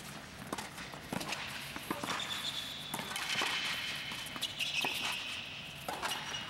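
Tennis rally: rackets striking the ball and the ball bouncing on the court, with footsteps and high squeaks in the middle.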